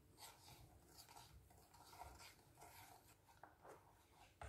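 Wooden spoon stirring cocoa, cornstarch and sugar into milk in a stainless steel saucepan: faint repeated scraping and swishing strokes, about two or three a second, as the spoon rubs the bottom and sides of the pan.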